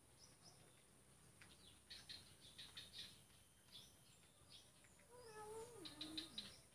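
A cat meows once about five seconds in: a drawn-out, wavering call that falls in pitch at the end.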